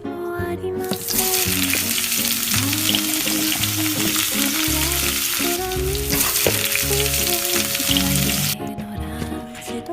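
A steady frying sizzle starts about a second in and stops sharply near the end, over background music.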